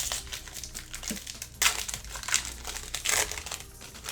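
Foil trading-card pack wrapper crinkling as it is handled and torn open, in crackly bursts, loudest about halfway through and again around three seconds in.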